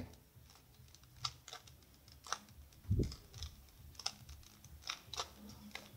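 Isaev's Fused Bi Clock, a bandaged 3x3 puzzle cube, being turned by hand: an irregular run of short, sharp plastic clicks as the layers rotate. One duller, louder low knock comes about halfway through.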